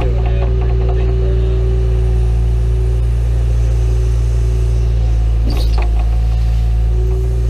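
John Deere 310E backhoe's diesel engine running steadily under load. A short, sharper sound cuts in about five and a half seconds in.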